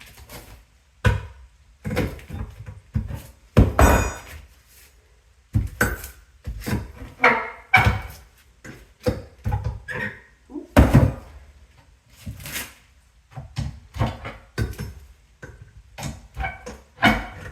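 Irregular thuds, knocks and wood cracking as termite-damaged wooden flooring is broken and pried up by hand, about fifteen blows in the stretch with short gaps between.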